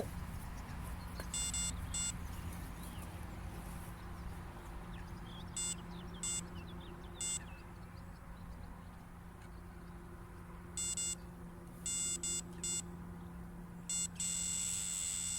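Electronic carp bite alarm beeping in short, irregular bursts of single bleeps, then sounding almost continuously near the end: a fish picking up the bait and taking line off the reel.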